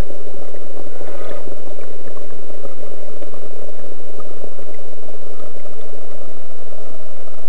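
The drive of a 1/72-scale RC Japanese I-25 submarine model running with a steady hum and a thin whine, heard up close from the camera on its deck, with water gurgling and sloshing against the hull.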